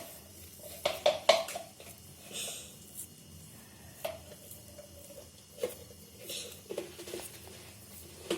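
Hands pinching off and rolling yeasted bun dough into small balls on a countertop: soft, sticky squishes with a few light taps and knocks, the loudest cluster about a second in.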